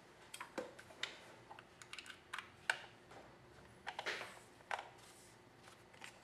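Clicks and light knocks of a charger plug, USB power meter and cable being plugged in and handled, with a brief rustle about four seconds in.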